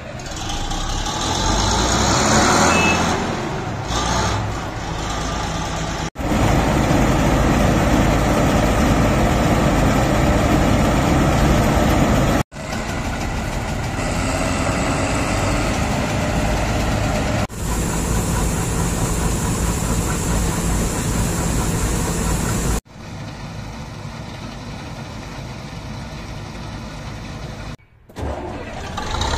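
Bizon combine harvester's diesel engine running, heard in a string of short clips that change level abruptly at each cut. In the first couple of seconds the engine picks up speed. After that it runs steadily, loud in some clips and quieter in others.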